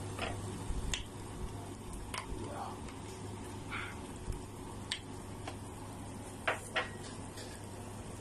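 A hand stirring and pressing dried flowers soaking in water in a stainless steel pot: soft wet rustling with a few short sharp clicks against the pot, two of them close together near the end.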